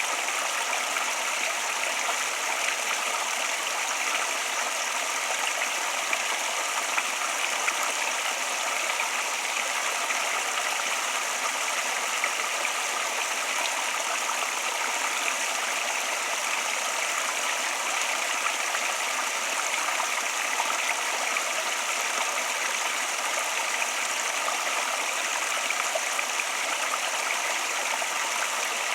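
Flowing water: a steady, even rush with a bright hiss and no changes in level.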